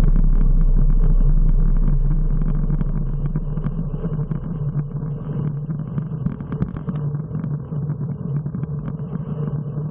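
Wind rush on the microphone and road rumble from a road bike riding at speed. The deep wind roar eases off about two to three seconds in, and the steady rumble carries on.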